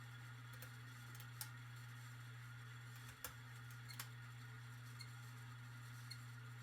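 Hunter Low Profile V ceiling fan coasting down after being switched off: a steady low hum with a sharp tick now and then.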